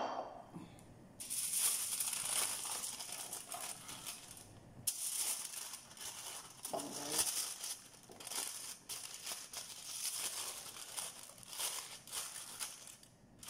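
Aluminium foil crinkling and rustling as it is folded and pressed by hand into a packet, starting about a second in and going on in uneven bursts.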